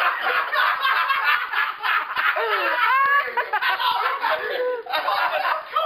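Several people laughing loudly together, their voices overlapping, with rising and falling cries about three seconds in.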